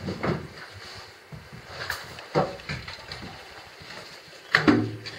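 Handling noise: a few scattered knocks and clicks as flexible plastic conduit and a cable clip are pressed and positioned against a wall by hand, the loudest knock a little before the end.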